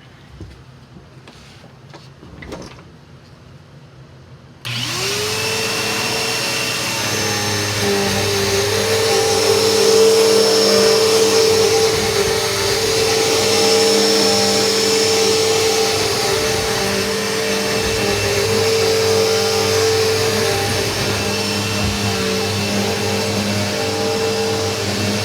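Bissell vacuum cleaner switched on about five seconds in, after a few faint knocks: its motor spins up quickly to a steady whine and keeps running.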